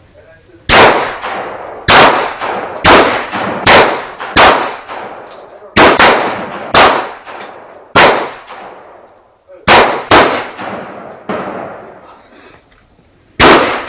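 Ruger SR22 .22 LR pistol firing CCI Stinger high-velocity rounds: about ten sharp shots at uneven intervals over the first ten seconds, then one more near the end. Each crack rings on briefly under the range's roof.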